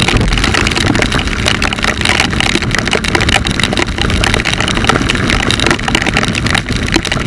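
Small motorcycle riding on a wet road in the rain, heard from a handlebar-mounted camera: a loud, steady rush of wind and road noise with irregular crackling over the engine.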